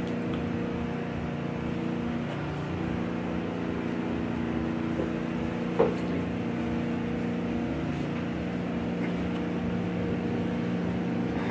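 A steady low hum made of several fixed tones, unchanging throughout, with one short click about six seconds in.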